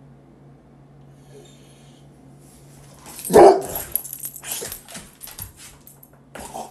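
A pit bull-type dog barks loudly about three seconds in and again at the very end: demand barks for more food at an empty bowl.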